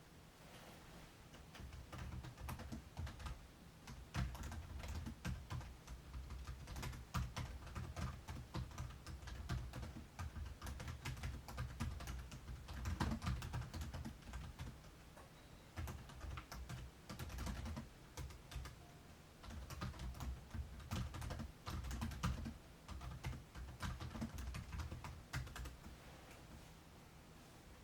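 Gusts of strong wind buffeting the microphone, with a rapid, irregular clatter of clicks and rattles that starts about a second in and dies away near the end.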